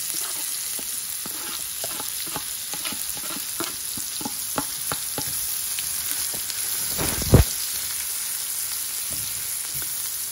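Chopped onions and garlic sizzling in hot olive oil in a non-stick frying pan, stirred with a silicone spatula that clicks and scrapes against the pan. One louder knock comes about seven seconds in.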